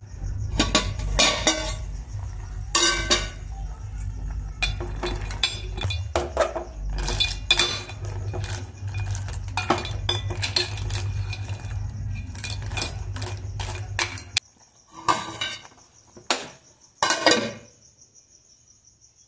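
Steel ladle clinking and scraping against a steel pot while stirring thick crab curry, over a steady low rumble. Near the end, with the rumble gone, a metal plate lid clanks back onto the pot in two short rattles.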